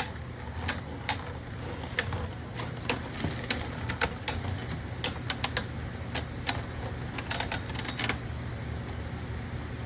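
Beyblade Burst spinning tops clacking against each other and the plastic stadium in rapid, irregular sharp clicks. The clashing stops a little after eight seconds, leaving only a low hum.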